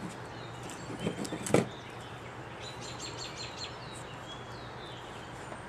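Electrical tape and a wiring harness being handled as a soldered splice is taped: light rustling and clicks, then a sharp knock about a second and a half in. Near the middle comes a quick run of about six short, high chirps.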